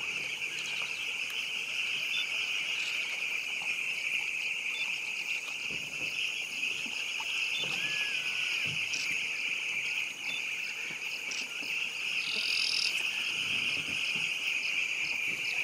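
Dense, steady high-pitched chorus of animal calls, unbroken, with occasional faint short calls standing out above it.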